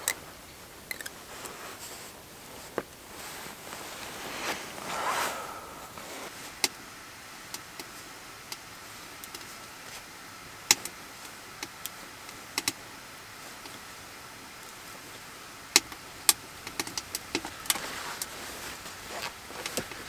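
Close-up sounds of hands at work on a log cabin: a rustle early on, then scattered sharp clicks and small taps, several in quick clusters near the end, as tarp fabric and cord are worked at a wooden door post.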